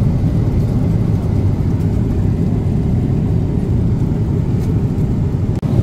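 Airliner cabin noise in flight: a steady low rumble of engines and airflow, with a momentary dropout near the end.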